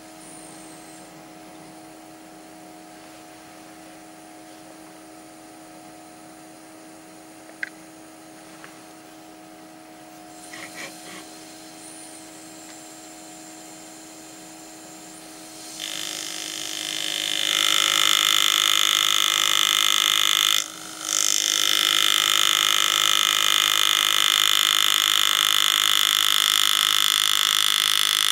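Pneumatic engraving handpiece (air graver) buzzing steadily as the graver cuts into a coin. It starts about halfway through, over a low steady hum, and stops briefly once about three quarters of the way in.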